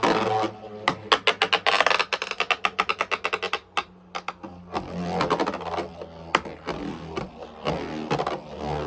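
Beyblade X top (Talon Ptera) battling in a plastic stadium: a fast run of clicks and clatter for about three and a half seconds, then a steadier whirring hum of spinning.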